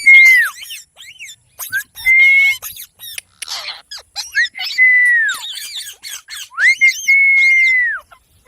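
Pet Indian ringneck parrot whistling and chirping: four long, high, steady whistled notes that drop in pitch at their ends, with quick chirps and a brief squawk between them.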